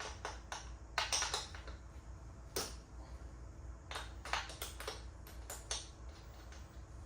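Irregular metal clicks and taps from a wrench on the dirt bike's chain adjuster lock nuts as they are loosened, some coming in short clusters.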